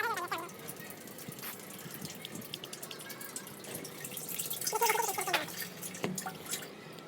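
Liquid dripping and trickling: plausibly hydraulic oil draining from a JCB excavator. A voice is heard briefly about five seconds in.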